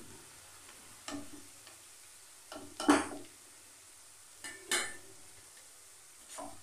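Spatula scraping and knocking against a nonstick kadhai as sliced onions are stirred and scooped through hot oil, with a faint frying sizzle underneath. Several separate scrapes, the loudest about three seconds in.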